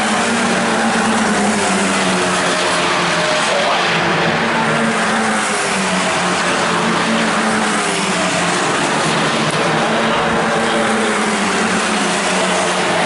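Several Formula 4 single-seaters with Abarth 1.4-litre turbo four-cylinder engines running at racing speed together, their overlapping engine notes making a steady, loud drone with small rises and falls in pitch as they pass.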